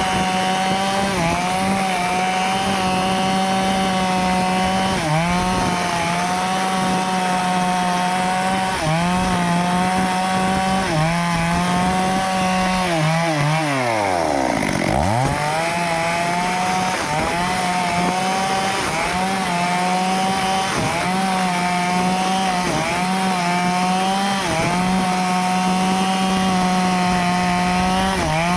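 Stihl two-stroke chainsaw running at full throttle, cutting into teak wood, its engine note sagging briefly again and again under the load of the cut. About halfway through the engine speed falls away sharply and then revs straight back up.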